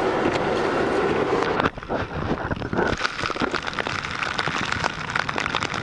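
Car driving on a snow-covered road: a steady rumble of road and wind noise. About two seconds in, a dense crackle of short clicks sets in.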